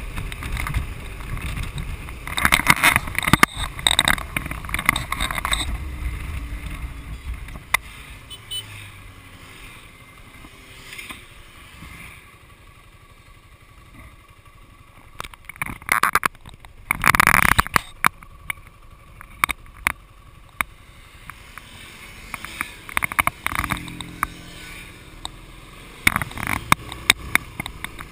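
Motorcycle on the move: wind rushing over the camera microphone above the low hum of the engine. Louder gusts come a few seconds in and again past the middle, with a quieter stretch between, and scattered sharp ticks near the end.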